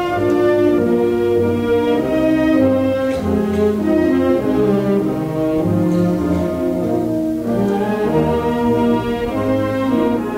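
High school symphonic band of brass and woodwinds playing, in an old concert recording: full, sustained chords that shift every second or so at an even, strong level.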